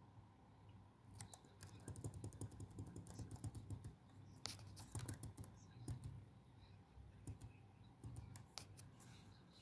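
Faint clicking of keys typed on a keyboard: a quick run of keystrokes from about a second in, then scattered single key clicks.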